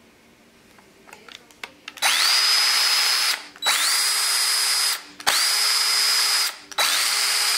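Craftsman V20 cordless drill/driver in first (low) speed gear, clutch turned to drill mode, triggered four times. About two seconds in, then every second and a half or so, the motor spins up with a rising whine to a steady high whine and stops abruptly on release, its built-in electric brake halting the chuck. A few light clicks of handling come before the first run.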